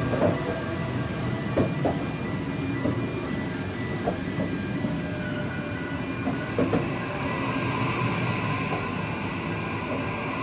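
Series 2 Waratah double-deck electric train running past the platform, its traction equipment giving a steady whine of several tones over the rumble of the cars. A few wheel clacks over rail joints sound through it.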